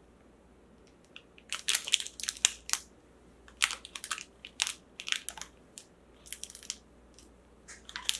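Clear plastic bag around a small vinyl figure crinkling as it is handled, in irregular crackles that begin about a second and a half in and come in clusters with short pauses.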